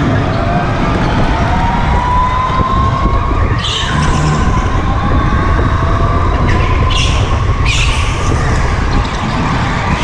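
A go-kart heard from on board while racing: a steady rumble of wind and vibration, with the kart's motor whine slowly rising and falling in pitch. The tyres squeal in short bursts on the concrete floor, once about four seconds in and three times in quick succession later.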